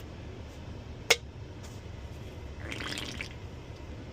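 A person slurping a drink, a short wet slurp near the end, with a single sharp click about a second in.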